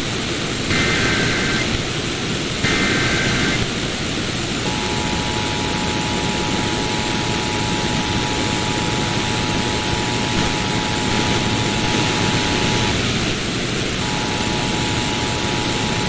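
Emergency Alert System tones over radio static. Two short warbling SAME data bursts come in the first few seconds, then the two-tone attention signal sounds steadily for about eight seconds, breaks off briefly and starts again near the end.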